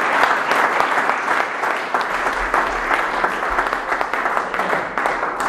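Audience applause, many people clapping together, thinning out near the end.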